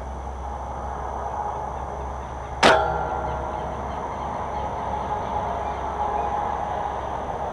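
An airsoft sniper rifle firing a single shot: one sharp snap about two and a half seconds in, followed by a brief metallic ringing, over a steady outdoor background hiss.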